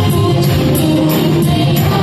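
Telugu Christian worship song performed live: women's voices singing held notes into microphones over a band of keyboard, guitar and drums, with cymbal strikes keeping a steady beat.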